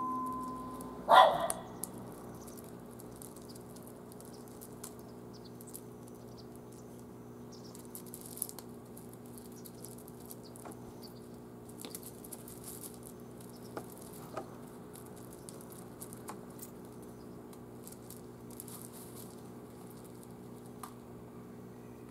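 A carrion crow gives one harsh caw about a second in. After it come faint scattered ticks of crows pecking and stepping on gravel, over a steady low hum.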